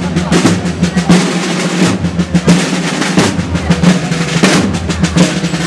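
A marching corps of rope-tensioned field drums, snare and tenor, beating a fast processional march with many rapid strokes and rolls.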